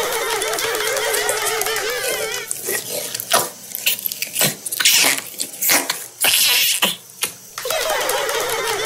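Noise putty squished by fingers in its plastic tub, giving drawn-out fart-like squelching toots at the start, a run of short squishes and pops in the middle, and another drawn-out toot near the end.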